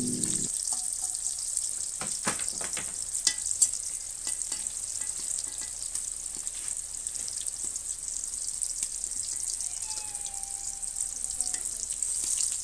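Whole pointed gourds (potol) sizzling steadily in hot oil in a large karahi, with a few sharp clicks about two to four seconds in.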